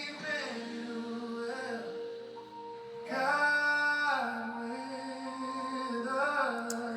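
Slow background music of long held notes, with a louder swell about three seconds in.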